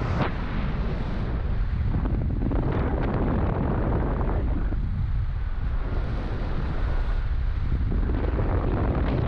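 Wind buffeting the microphone of a camera held out of a moving car's window, a steady heavy rumble with road noise underneath.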